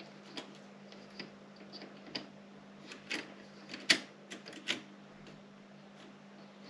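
Erika 30 manual typewriter being typed on slowly and unevenly: single key strikes clacking at irregular gaps, with a quicker run of louder strikes in the middle.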